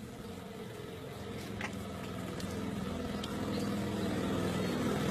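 A motor engine running steadily, growing gradually louder, with a few faint clicks over it.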